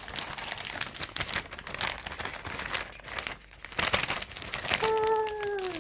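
Plastic pancake-mix packaging crinkling and rustling as it is handled and opened, in uneven bursts. Near the end, a short held vocal sound slides downward in pitch.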